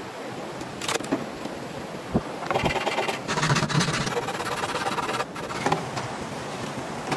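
Folding saw rasping through green bamboo for a stretch in the middle, with a few hollow knocks of bamboo poles against rock, over a steady rush of flowing creek water.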